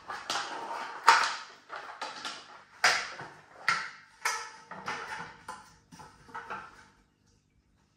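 Slats of a roll-up camping table top clattering and knocking against each other as the top is lifted and unrolled, a string of sharp clacks.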